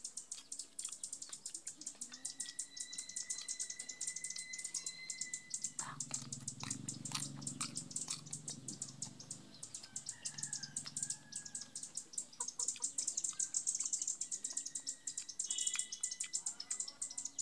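Chewing and biting into a crisp raw green gourd, heaviest about six to nine seconds in. Birds chirp in the background, with a fast, fine ticking throughout.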